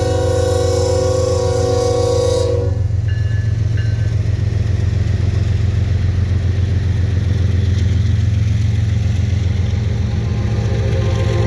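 Train horn sounding a held chord over the heavy rumble of a train, the horn cutting off about two and a half seconds in. The rumble carries on steadily, and the horn sounds again near the end, dropping slightly in pitch.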